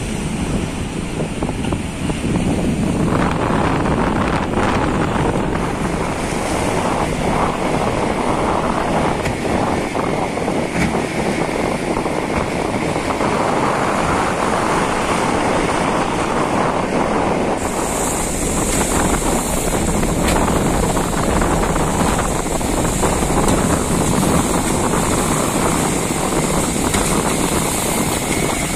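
Strong wind buffeting the microphone over the rush of breaking sea waves, a loud, steady noise throughout.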